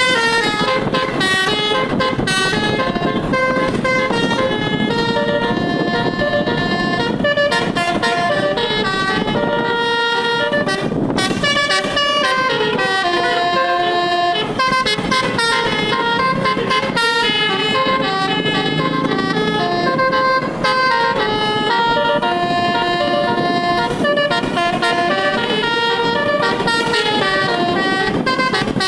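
Indonesian bus telolet horn, a multi-tone air horn with all its tones switched on, playing a melody without a break. Its notes step up and down every fraction of a second.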